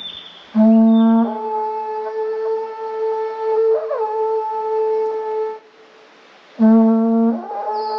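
Horagai (Japanese conch-shell trumpet) blown in two long blasts. Each starts on a low note and breaks up to a higher one, and the first wavers briefly in pitch midway. After a pause of about a second, the second blast begins and is still sounding at the end.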